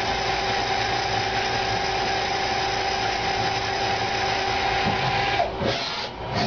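CNC lathe with a live-tool-driven right-angle head machining a bore: a steady high whine over machine noise. About five and a half seconds in, the whine drops in pitch and the sound briefly breaks off, then resumes.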